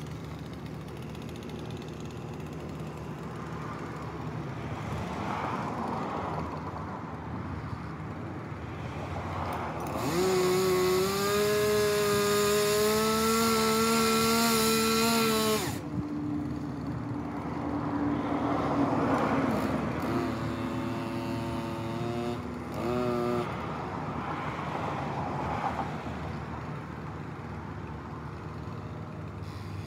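Gas chainsaw revved to high, steady throttle for about five seconds, then idling, revved briefly once more and cut off about two-thirds of the way through.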